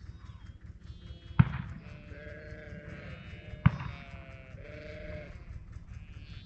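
Sheep bleating several times, with two sharp knocks about two seconds apart, the loudest sounds here, over a steady low rumble.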